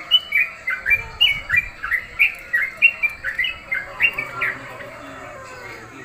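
Caged yellow-vented bulbul (trucukan) chirping in a fast run of short notes, about three or four a second, growing fainter after about four and a half seconds.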